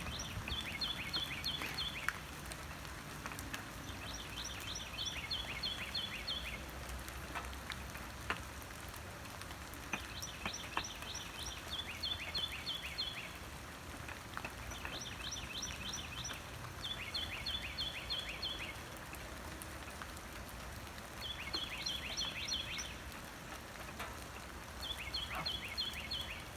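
Steady rain with scattered drops ticking on a surface. A songbird sings a short, rapid trilled phrase every few seconds over it.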